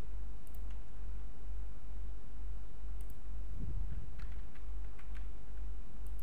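Computer mouse and keyboard clicks: a few single clicks, then a quick cluster of clicks about four to five seconds in, over a steady low hum.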